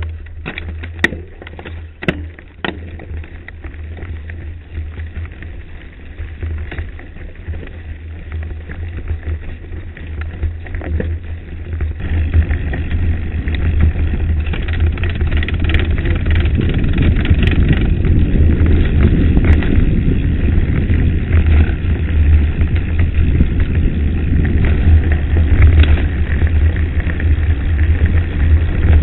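Wind buffeting a bike-mounted camera's microphone while a mountain bike rolls down a loose gravel track, with tyre crunch and a few sharp rattles over stones in the first seconds. The rushing noise grows louder from about twelve seconds in as the bike gathers speed.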